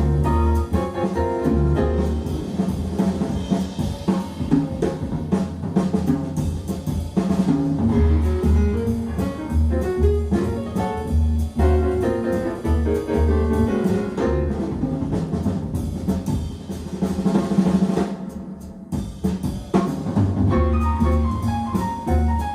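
Jazz recording played back through B&W 802D3 loudspeakers: a drum kit with bass drum and snare plays prominently over a repeating piano and bass figure.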